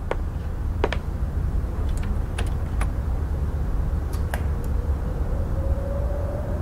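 Bicycle lock clicking as it is handled and latched: about eight sharp clicks, some in quick pairs, over a steady low rumble. A faint tone comes in about halfway through and slowly rises.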